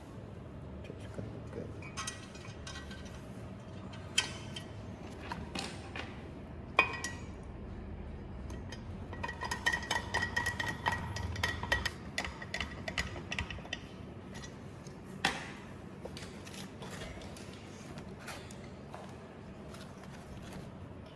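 Clicks, clinks and knocks of the belt sander's metal and plastic parts being handled and fitted together as its housing is reassembled. A few sharp knocks stand out, and there is a busier stretch of clinking with a faint ringing tone in the middle.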